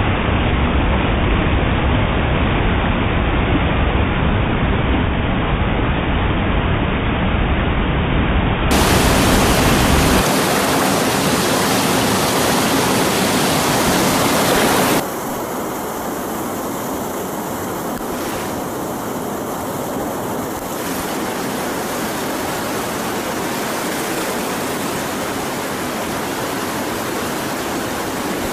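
Steady loud rushing of whitewater rapids on a fast mountain river. The noise changes abruptly in tone about nine seconds in and becomes somewhat quieter about fifteen seconds in.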